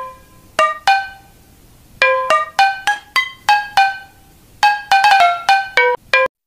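Background music: a light melody of short plucked-sounding notes, each ringing briefly and fading, played in a few quick runs with short pauses between them.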